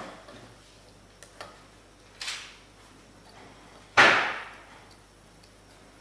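Fingers handling a car key fob's small circuit board and rubber weather seal on a wooden table: a few light clicks and rustles, with a louder thump about four seconds in.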